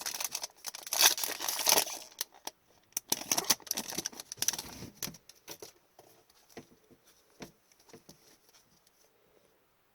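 Trading-card pack wrapper crinkling and tearing open for about the first five seconds, then scattered light taps and slides of cards being handled.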